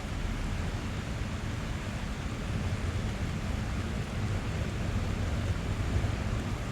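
Steady rain drumming on a car's roof and glass, heard from inside the cabin, over a constant deep rumble.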